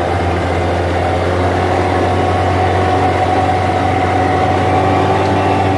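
Off-road vehicle's engine running at a steady speed while driving, heard from inside the cab, an even drone that neither rises nor falls.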